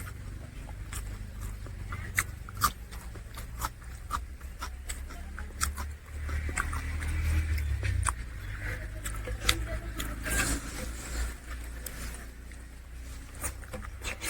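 Close-up eating sounds of a man chewing a meal of curry and rice: irregular wet smacks and mouth clicks over a steady low rumble.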